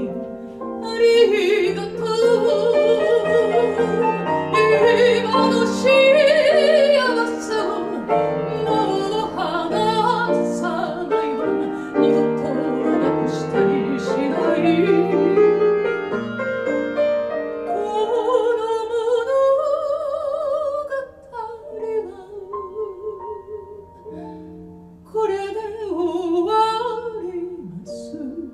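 Woman singing a chanson in Japanese with wide vibrato on long held notes, accompanied by piano chords. The voice drops away briefly about two-thirds through, comes back, and fades near the end.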